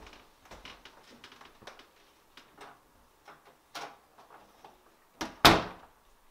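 Wooden panel door swung shut, closing with a loud bang about five seconds in, just after a lighter knock. A scattering of soft taps comes before it.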